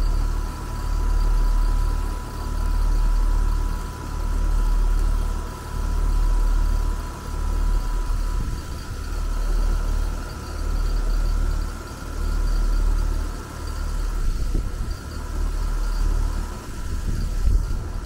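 Outdoor air-conditioner condensing unit running with a failed compressor during a pump-down test: a low hum that swells and fades about every two seconds, with a steady slight whine over it. The compressor is no longer pumping; the pressures are stalling around 130 psi instead of dropping.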